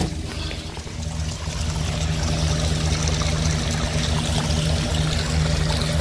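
Brown, dirty carpet-cleaning waste water gushing out of an open valve and pouring and splashing onto the ground, foaming as it runs. It is a steady rush over a steady low hum.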